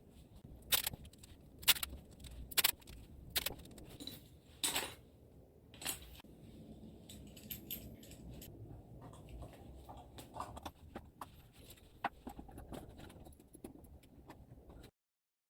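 Sharp clicks and knocks of small hard objects being handled, about one a second at first, then lighter scattered ticks; the sound cuts off abruptly near the end.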